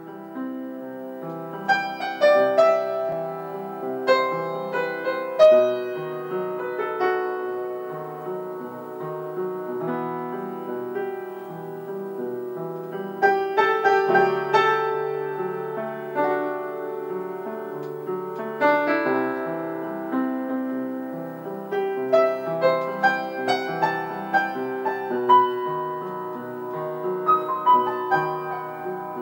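Solo piano music: single notes and chords struck one after another, each ringing out and fading.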